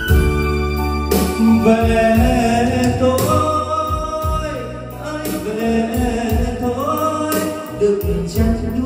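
Karaoke backing track playing loud through the WeWorld C12 speakers and S1800 subwoofer: a melodic lead gliding between held notes over a steady bass line and beat.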